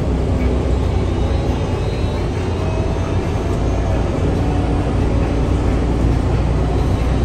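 Steady low rumble of a moving vehicle, running evenly with no breaks.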